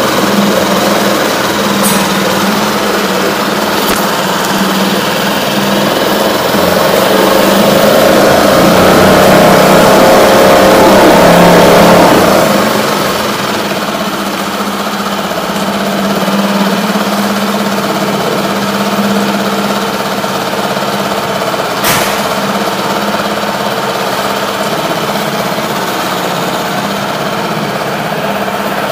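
Hidea HDF6HS four-stroke 6 hp outboard motor running steadily, being run with its fuel supply shut off to burn the petrol out of the carburetor before storage. It grows louder for a few seconds in the middle, then drops back, and there is one short sharp click about three-quarters of the way through.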